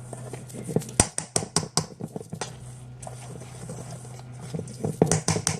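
A utensil stirring a dry mix of vital wheat gluten, oats and powders in a bowl, scraping and clicking against the bowl. The clicks come in quick runs about a second in and again near the end.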